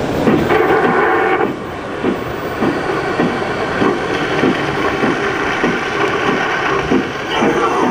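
A model steam locomotive chuffing at an even pace, about two beats a second, over a steady hiss.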